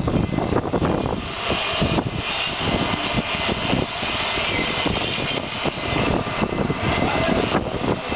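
Loud, steady jet-like roar of running plant machinery, with a stronger high hiss coming in about a second in over a rumbling low end.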